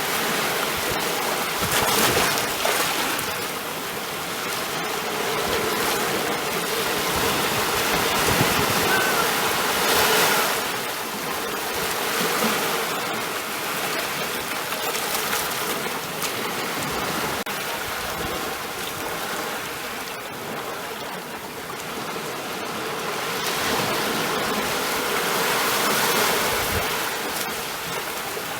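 Ocean waves breaking and washing in, a steady rush of surf that swells and falls every few seconds.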